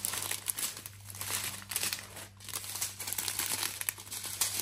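Small plastic bags of diamond-painting drills crinkling as they are handled, with irregular crackles throughout.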